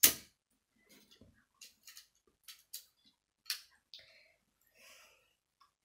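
Small plastic Lego pieces clicking and tapping as they are handled: one sharp click at the start, then a few faint, scattered clicks.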